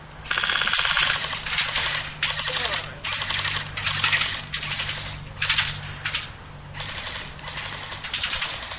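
Airsoft rifles firing in repeated full-auto bursts of rapid clicks, several bursts of about half a second to a second each, with short pauses between them.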